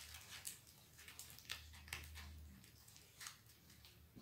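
Near silence, with a few faint short rustles and taps as a diamond painting canvas is handled and unfolded.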